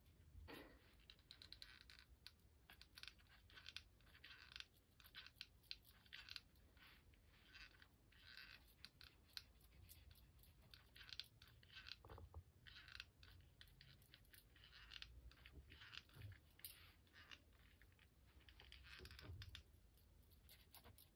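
Faint, scattered scratching and light clicking of hands working a hot glue gun along a thin wooden cutout on a woven rug.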